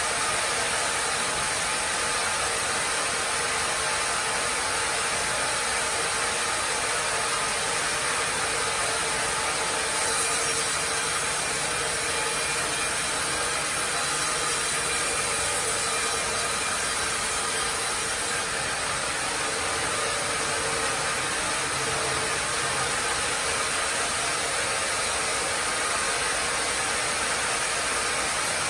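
Carriage sawmill running steadily, its saw blade cutting through a tree-of-heaven log as the log carriage carries it past, with the cutting noise strongest around the middle.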